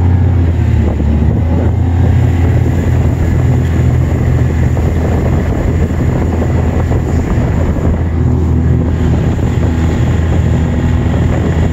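Snowmobile engine running steadily at cruising speed: a loud, even low drone, with the rush of the machine moving over the snow heard from the seat.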